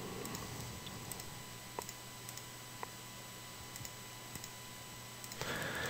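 Faint clicks of a computer mouse, with two sharper clicks about two and three seconds in, over a low steady hum.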